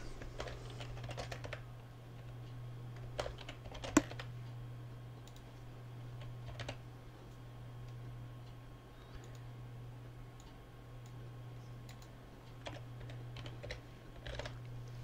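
Computer keyboard keystrokes and mouse clicks, sparse and irregular, with one sharper click about four seconds in. A steady low hum runs beneath.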